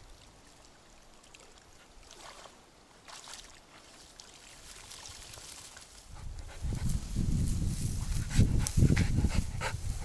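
A dog panting and rustling in grass close by, over a loud low rumble. Both come in about six and a half seconds in, after a near-quiet start with a few faint clicks.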